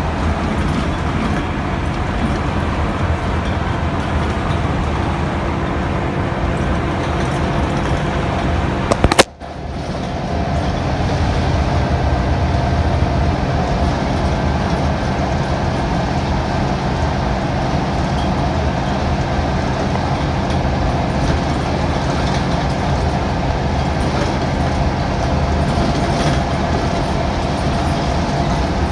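Cummins 6BT six-cylinder diesel of a Dennis Dart bus running at full throttle on kickdown, held in fourth gear of its Allison automatic, as a steady drone heard from inside the passenger saloon. About nine seconds in there is a brief sharp crack and the sound drops out for a moment before the drone builds back up.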